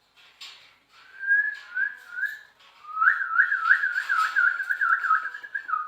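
Clear whistling: a few short rising whistled notes, then a long, rapid up-and-down warbling whistle from about two seconds in.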